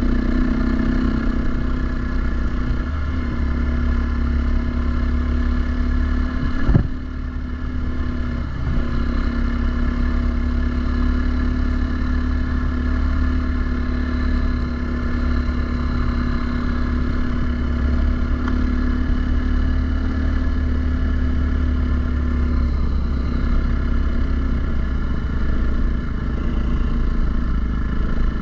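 Single-cylinder four-stroke dirt bike engine running steadily, with one sharp knock about seven seconds in.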